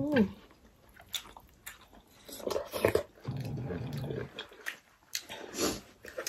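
Close-up mouth sounds of people eating by hand: scattered wet chewing and lip-smacking clicks. A short falling vocal sound comes at the very start, and a low hummed voice sound follows about three seconds in.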